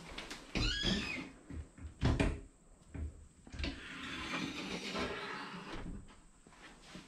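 A squeaky hinge creaking with a wavering pitch, then a loud knock about two seconds in, followed by a few seconds of scraping and rustling.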